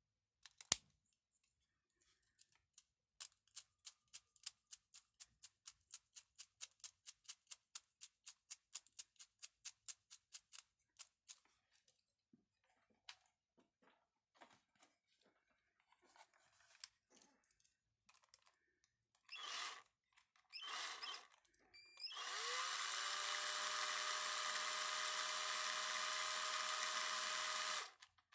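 3D-printed mechanical counter clicking as it is turned by hand, a steady run of about three or four clicks a second. Later come two short bursts, then a handheld drill spinning the counter for about six seconds: its whine rises as it spins up, holds steady, then cuts off.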